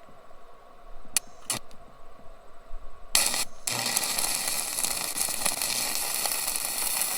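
Stick-welding arc: a couple of sharp clicks as the rod is struck, then about three seconds in the arc catches, breaks briefly and relights, and crackles steadily, welding a nut onto a twisted-off bolt stud.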